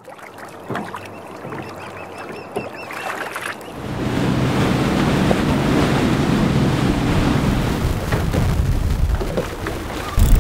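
Boat under way at sea: wind and water rushing past the hull. The sound is quieter at first, grows louder about four seconds in, and jumps up again near the end.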